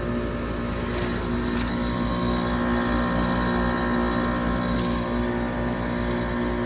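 A Trane XR14 3.5-ton heat pump outdoor unit running steadily, its compressor and fan giving a constant, even hum.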